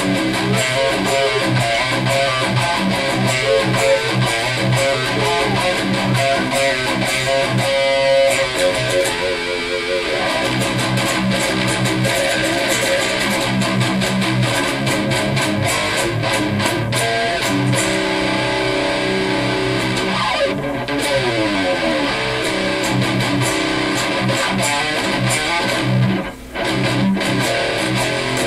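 Electric guitar, a Flying V kit with EMG Hetset pickups, played through a Mesa/Boogie Mark V 25 tube amp head and Fryette Power Station into a speaker cabinet, riffing continuously and loudly. The playing breaks off for a moment about 26 seconds in, then carries on.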